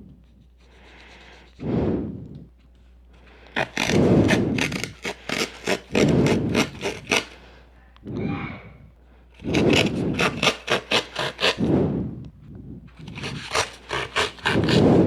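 Cardboard and paper being scraped and rubbed by hand in three runs of quick, even strokes, about three a second, with quieter single scrapes between.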